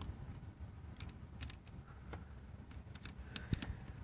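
Screwdriver and screw clicking and scraping against a plastic speaker mounting plate as the screw is worked in: a scatter of small sharp clicks, the loudest with a low knock about three and a half seconds in, over a steady low rumble.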